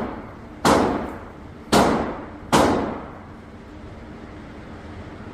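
Three gunshots, a little over a second apart and then slightly quicker, each with a short echoing tail.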